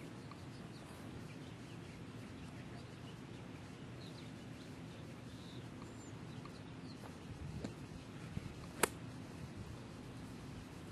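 A golf club striking a ball off the range turf: one sharp crack about nine seconds in, the loudest sound here. Faint bird chirps over steady outdoor background noise.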